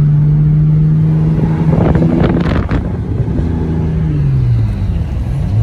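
BMW 328i's straight-six engine heard from inside the cabin, running at steady revs, then the pitch drops about four and a half seconds in as the revs fall for a gear change. A short rush of noise comes about two seconds in.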